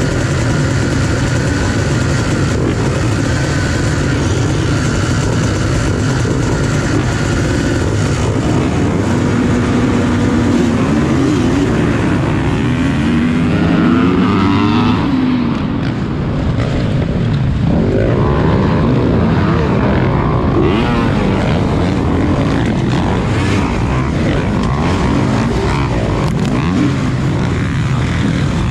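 Several motocross dirt bikes racing, their engines revving up and down.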